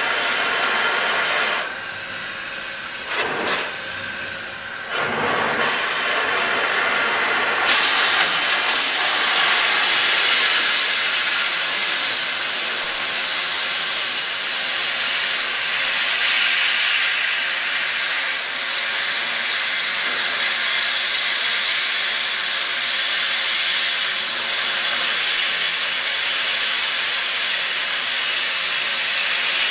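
Mechanized oxy-fuel cutting torch cutting steel plate. About eight seconds in, a loud, steady hiss starts suddenly and keeps up evenly as the cut runs. Before that there is a quieter, uneven noise.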